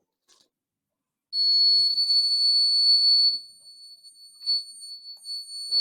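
Electronic buzzer of a homemade fire alarm sounding one steady high-pitched tone. The tone starts suddenly about a second in, stays loud for about two seconds, then goes on more faintly and unevenly. This is the alarm going off once the fluorescent-starter heat switch closes the circuit.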